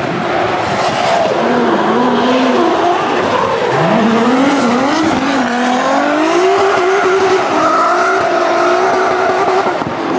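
Drift cars on track, engines revving up and down through the rev range with wandering, gliding pitch, over skidding and squealing tyres.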